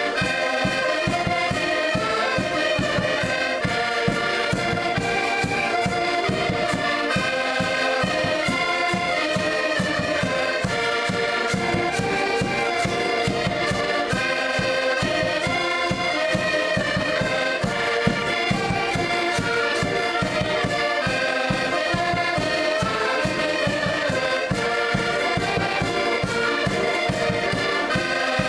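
A group of diatonic button accordions playing a lively traditional tune together, with a steady fast beat in the bass.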